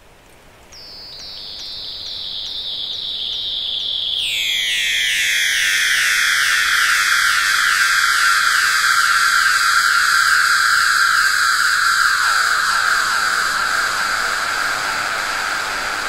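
Electronic sound from a plasmaphone, a plasma-globe instrument: high whistling tones pulsing in short falling chirps about twice a second, insect-like. It grows louder over the first few seconds, slides down in pitch about four seconds in, and slides lower again near twelve seconds.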